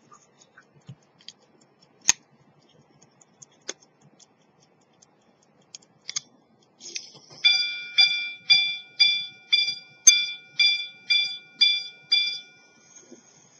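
Antique Swiss quarter-repeater pocket watch with a gun-metal case striking on its gong. A few small handling clicks come first. Then the repeater train starts with a whir, and about ten evenly spaced chime strikes follow, two a second, each ringing on with a clear, bell-like tone, before a brief high whir after the last strike. The repeater's striking, tuned gong and activation mechanism work again after repair.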